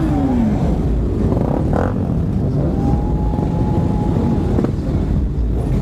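Several motorcycle engines idling together, with one revved up and back down near the start and again briefly near the end.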